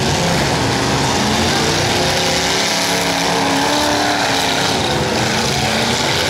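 Several demolition derby cars' engines revving hard at once in a dense, steady racket, their pitch rising and falling as the cars spin their wheels in the dirt.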